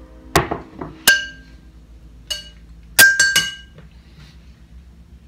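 Metal spoon clinking against a mixing bowl while stirring a meat-and-vegetable stuffing: about six sharp, ringing clinks, the loudest three close together about three seconds in.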